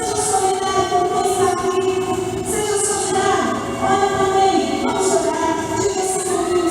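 A church choir singing a song with musical accompaniment, the voices holding long notes.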